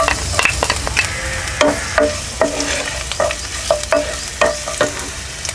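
Chopped garlic sizzling in hot oil in a nonstick kadhai, stirred with a wooden spatula that knocks against the pan in a string of short, irregular clicks.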